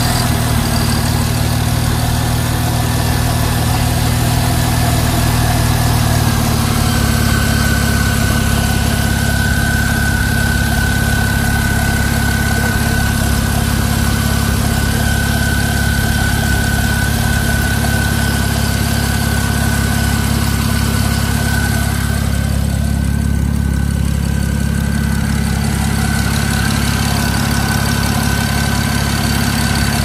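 BMW 335i's turbocharged inline-six engine idling steadily. About seven seconds in, the low engine note changes and a steady high whine comes in and carries on.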